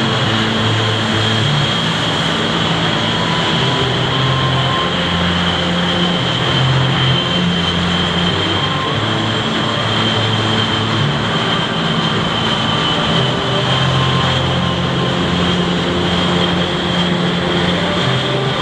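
Blue Angels F/A-18 Hornet jet engines running steadily at low power, with a constant high whine over a rumbling roar and no fly-by rise or fall.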